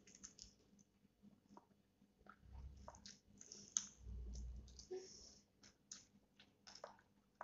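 Faint close-up chewing of crunchy fried chicken: irregular crisp crunches and wet mouth clicks, busiest about halfway through, with one sharp click near the middle.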